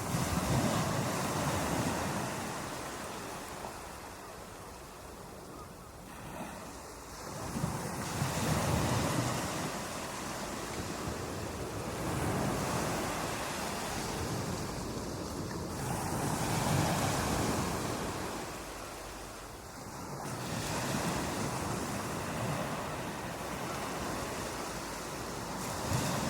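Ocean surf breaking on a beach: a steady wash of water noise that swells and falls back as each wave comes in, about every four to five seconds.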